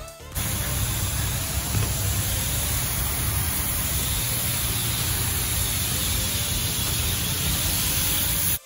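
Steady, loud hiss of a car-wash pressure washer spraying water, unbroken for about eight seconds and cutting off abruptly near the end.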